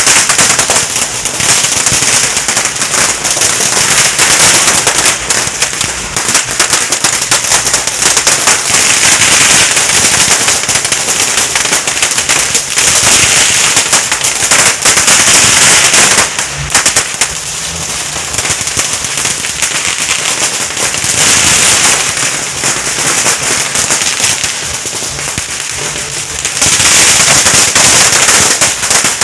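Strings of firecrackers going off in a dense, unbroken stream of rapid bangs, easing for a few seconds about two-thirds through and surging again near the end.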